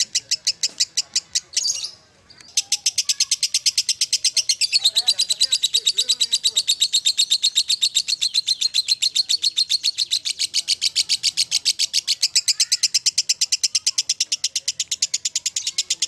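Fischer's lovebird ngekek: a long, fast, even run of sharp chattering notes. It breaks off briefly about two seconds in, then starts again and runs on without a pause.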